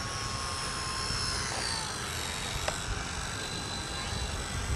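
Electric motor and propeller of a Parkzone Typhoon 2 3D RC plane whining in flight. The pitch falls between about one and two seconds in as the throttle comes back for the landing approach, over a low rumble of wind on the microphone.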